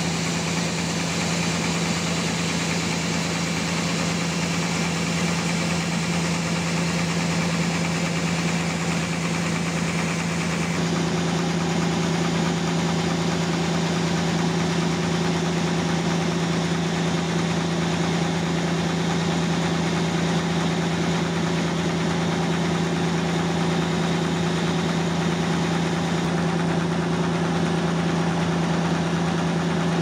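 Sawmill engine running steadily under a constant machine noise, its pitch holding level; about eleven seconds in the sound shifts, with a higher tone dropping out and a new one setting in.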